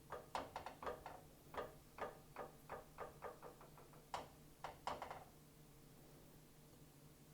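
About fifteen light, irregular knocks and clicks of a utensil against cookware over some five seconds, then they stop.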